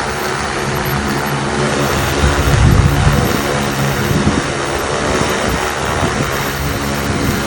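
Multirotor agricultural spray drone (SuperX 2.0) in flight, its propellers giving a steady, loud, layered hum that swells briefly about two and a half seconds in.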